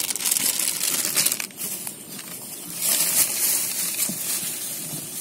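A hand kneading and turning dry maize flour in a stainless steel bowl: a crunchy, rustling sound that swells twice as the hand works through the flour.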